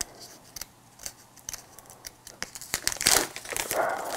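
Nasal test swab's sealed wrapper being peeled open and crinkled by hand: scattered soft crackles and tearing, growing busier about two and a half seconds in.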